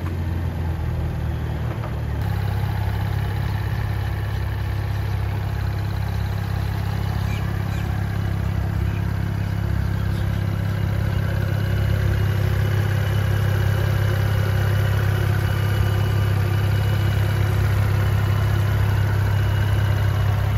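Cadillac CT4-V Blackwing's twin-turbo 3.6 L LF4 V6 idling steadily, heard at the open engine bay.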